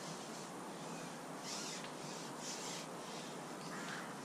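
Steady outdoor background noise, with two short rustling scrapes about a second and a half and two and a half seconds in, and a short bird call near the end.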